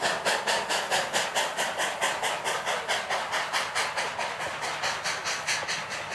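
Class 25NC steam locomotive working a train, its exhaust beats coming steadily at about five a second over a hiss of steam, slowly fading as it moves away.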